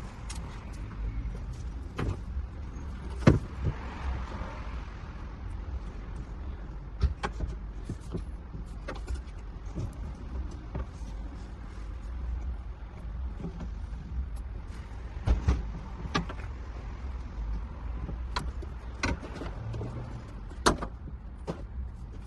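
Scattered sharp clicks and knocks of hand work on the van's fittings, over a steady low rumble.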